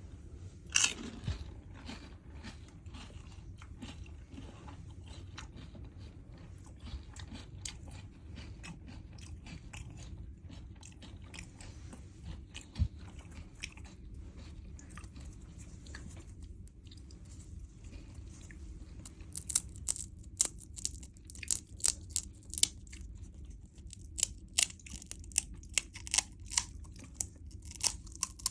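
A person chewing and crunching pani puri, the crisp fried puri shells cracking between the teeth. A sharp crack comes about a second in, and the crunches grow thicker and sharper over the last third.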